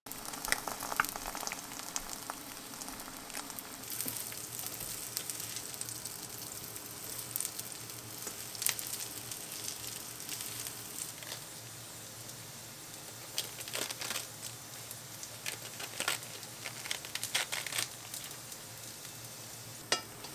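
Food sizzling in hot oil in a nonstick frying pan, first two eggs frying and then crinkle-cut fries. A spatula scrapes and taps against the pan every few seconds.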